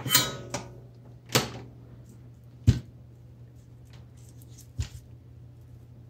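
Tools being picked up and set down on a workbench: a clatter at the start, a rustle about a second and a half in, then two sharp knocks. The loudest knock comes near the middle and a softer one near the end, over a faint steady low hum.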